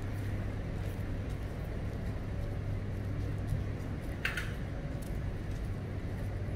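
City street ambience: a steady low hum of traffic, with one short high squeak about four seconds in.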